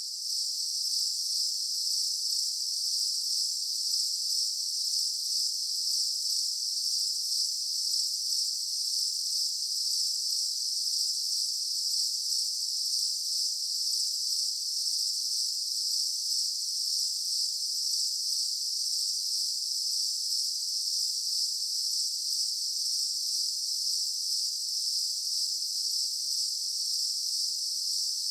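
Daytime insect chorus: a dense, steady high-pitched buzzing of many insects calling at once.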